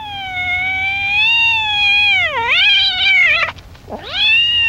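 Cat meowing: one long, wavering meow that dips in pitch, then a shorter second meow near the end.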